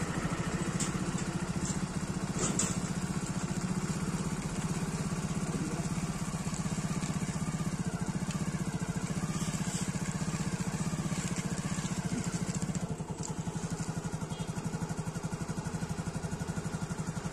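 A small engine idling steadily, with a fast even pulse, dipping briefly in level about 13 seconds in.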